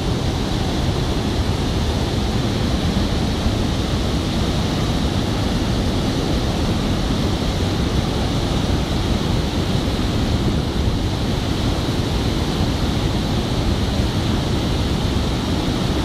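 Steady rushing of the flooded, muddy Mekong River pouring through rapids and falls.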